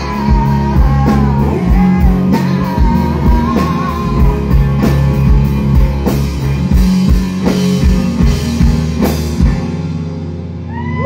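Live rock music on electric guitar and drums, playing the last bars of a song. The drums stop about nine and a half seconds in and the guitar rings out, with whoops and cheering starting right at the end.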